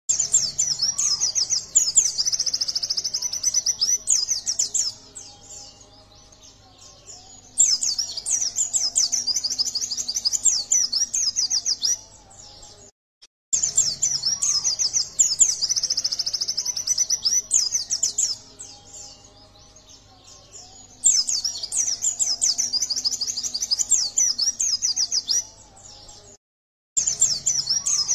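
Yellow-breasted white-eye (pleci dada kuning) singing: loud, fast, high twittering trills in bursts of a few seconds, with quieter spells between. The same passage starts over after a brief cut to silence about halfway through.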